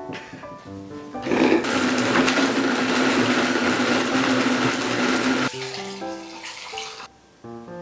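An electric blender running for about four seconds, starting about a second in and cutting off, over light background music.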